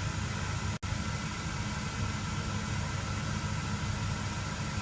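Steady low hum and hiss of a KM8000 diesel hotbox asphalt reclaimer running, its burner just enabled, with a brief break in the sound a little under a second in.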